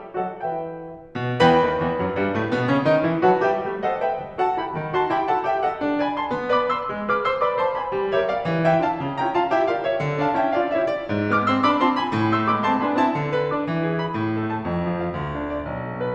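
Background solo piano music, a flowing melody over a moving bass line, with a brief pause about a second in before a new phrase begins.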